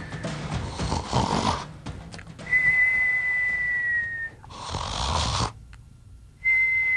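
A man snoring: a rough, rasping snore followed by a long, high whistle that sags slightly in pitch at its end, in two cycles.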